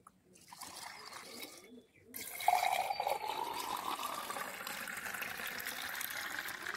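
Lassi poured from a clay pot, then, about two seconds in, poured in a steady stream into a tall glass, the pitch of the pour rising as the glass fills.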